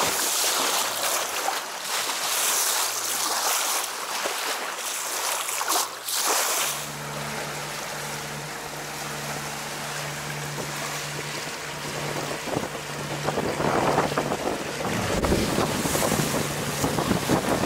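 Wind buffeting the microphone and sea water rushing and splashing around a sailing yacht, in gusts. About a third of the way in the sound changes abruptly: a steady low hum joins the wind and water noise, and the wind and water grow louder again near the end.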